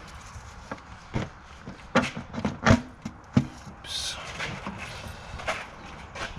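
Irregular knocks and clanks of hand tools and engine parts being handled while an engine bay is stripped, about seven sharp strikes with the loudest cluster in the middle, and a brief hiss a little after.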